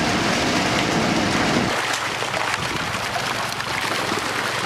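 Water rushing out of a trout-stocking truck's tank and down a chute, with live trout thrashing and splashing in it. About two seconds in the deep rumble drops away and the splashing water carries on.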